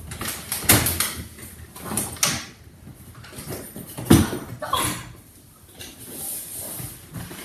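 A house's front door being opened and shut, with handle and latch clicks and a heavier thump about four seconds in.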